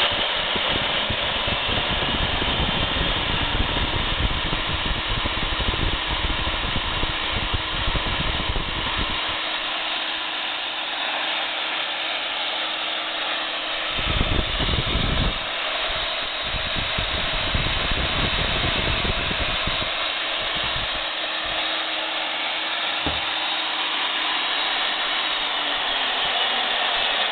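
Milwaukee 4210-1 magnetic drill press motor running with no load at its upper speed settings: a continuous whir. A low rumble sits under it for the first nine seconds or so and returns briefly around the middle.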